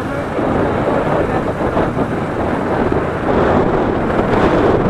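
Wind rushing over the camera microphone on a moving motorcycle, a steady loud noise with road and engine sound mixed in.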